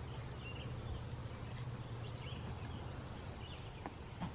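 Outdoor farmyard ambience: scattered faint bird chirps over a low steady hum.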